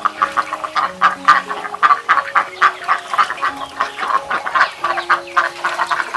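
A flock of ducks calling constantly, with many quick overlapping quacks and chatter. Background music with long held notes plays underneath.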